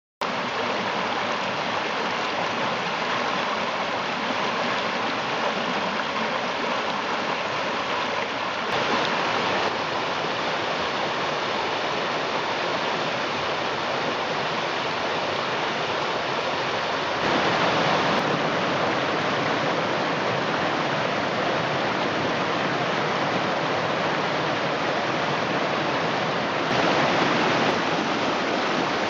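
Mountain creek rushing and splashing over rocks in a steady, full rush of water. Its tone and loudness shift slightly a few times, about every eight or nine seconds.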